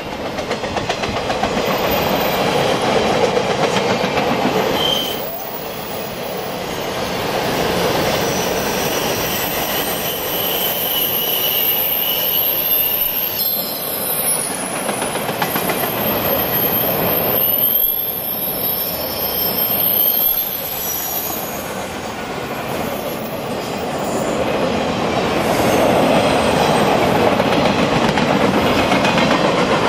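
Empty railroad flatcars rolling steadily past: a continuous rumble of steel wheels on rail, with thin, high wheel squeal coming and going.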